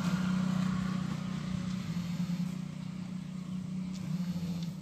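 A small engine running steadily nearby, a low, even hum.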